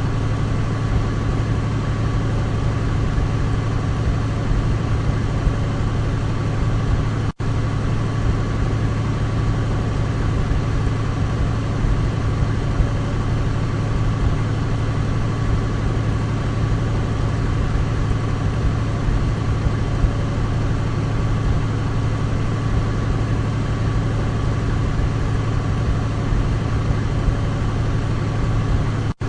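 Douglas DC-3's twin radial piston engines running with a steady, deep drone that holds an even pitch throughout. The sound cuts out for an instant about seven seconds in, then resumes unchanged.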